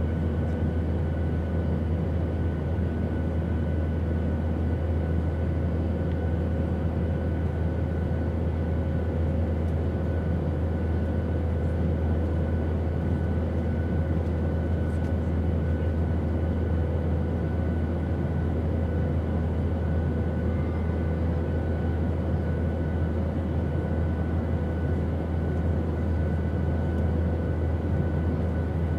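Steady airplane noise: a strong deep rumble under an even rushing hiss, with a few faint steady hum tones above it, unchanging throughout.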